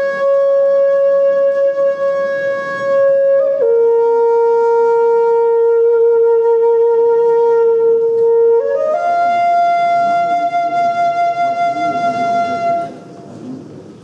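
Solo wind instrument playing a slow improvisation on Turkic themes: three long held notes, the middle one lower with a slight waver, the last one higher, fading out near the end.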